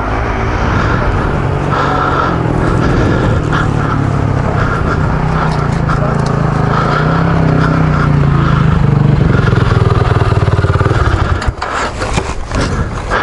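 Off-road vehicle engine idling steadily, then cutting out about eleven seconds in, followed by a few knocks.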